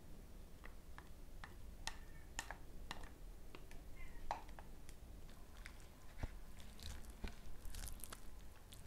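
Wooden spoon scraping and tapping a glass bowl as a chunky, wet red marinade is dolloped onto a slab of raw beef, then squelching as it is smeared over the meat by hand. A run of small irregular clicks and soft wet slaps, with one short clink about two seconds in.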